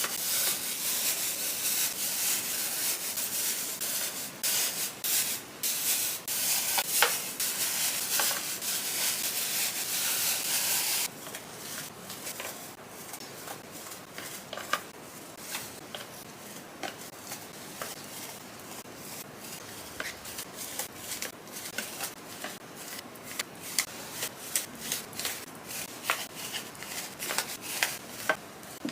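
Hands rubbing and rustling packaging material for jewelry gift boxes: a dense, continuous rustle for about the first eleven seconds, then quieter, scattered light taps and crinkles.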